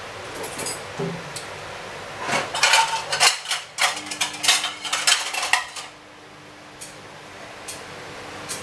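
Metal spoon and cookware clinking and clattering for about three seconds around the middle, with a few single light clinks before and after, over a steady low hiss.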